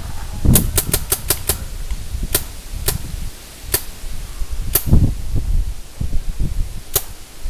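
Paintball markers firing: a rapid string of about six shots in the first second and a half, then single shots roughly a second apart, over a low rumble.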